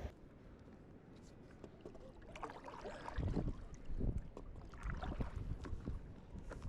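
Water sloshing and splashing around a stand-up paddleboard, with wind buffeting the microphone. It is quiet for about the first two seconds, then comes in irregular swells.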